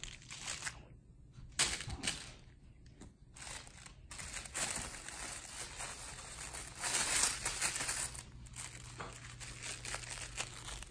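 Irregular rustling and crinkling in short bursts, loudest about one and a half seconds in and again around seven seconds.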